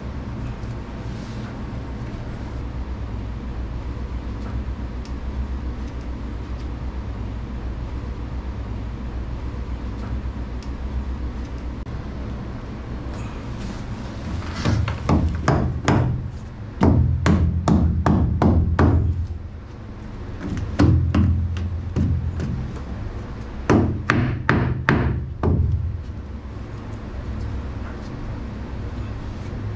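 Background music for the first half. From about halfway, a hammer strikes the propeller shaft setup in quick bursts of several sharp, ringing blows, with short pauses between the bursts.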